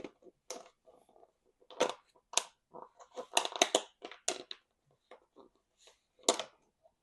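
Crinkly packaging being handled close to the microphone: a run of irregular crackles and rustles, with a loud crackle near the end.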